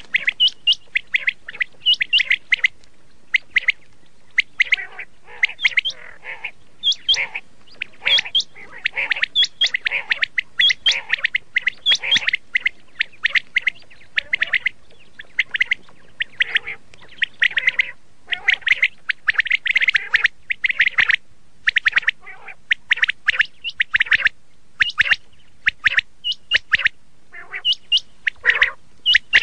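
Quail calling over and over, a rapid run of short, high chirping calls with hardly a break, over a faint steady hiss.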